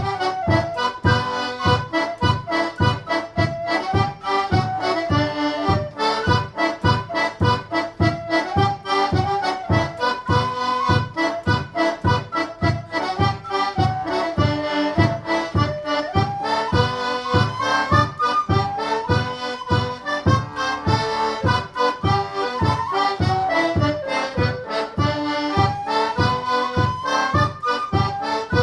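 One-row, four-stop melodeon playing an instrumental tune: a melody line over an even, steady beat of bass and chord strokes.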